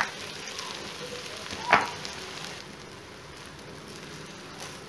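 Stir-fried vegetables and chicken sizzling in a wok as cooked rice is tipped in and mixed with a spatula, with a knock at the start and a louder one a little under two seconds in.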